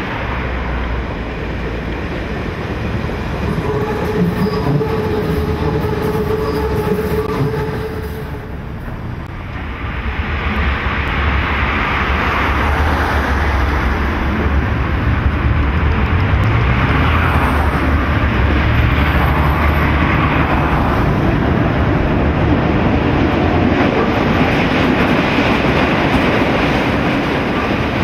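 Hamburg U-Bahn DT2 train running on a steel elevated viaduct: wheels rumble on the track, with a steady whine for a few seconds in the first part. After a short dip about nine seconds in, a louder rumble follows as a train pulls out of a station and passes.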